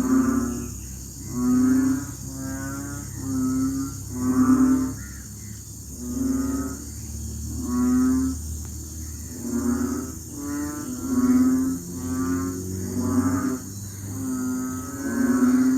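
A chorus of frogs giving low, pitched croaking calls in their rainy-season mating chorus. Each call lasts under a second and they come roughly once a second, with two or more frogs at slightly different pitches overlapping. A steady high-pitched hiss sits underneath.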